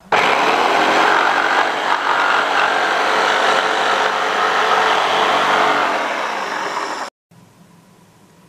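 Electric jigsaw running and cutting through a wooden board, a steady dense buzz of motor and reciprocating blade. It cuts off abruptly about seven seconds in, leaving only a faint steady hum.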